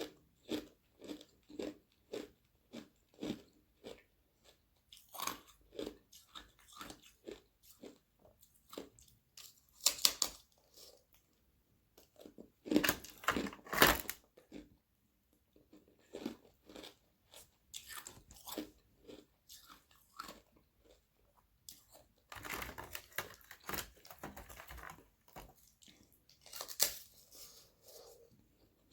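Close-up chewing and biting of thin frozen carbonated-water ice sheets: a run of short, sharp crunches, with louder, denser bursts of crunching where fresh pieces are bitten off, about ten seconds in, around thirteen to fourteen seconds, and again in the mid-twenties.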